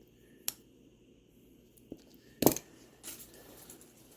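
A few sharp clicks of small metal pocket items being handled and set down on a hard surface, the loudest about two and a half seconds in, with fainter ticks after it.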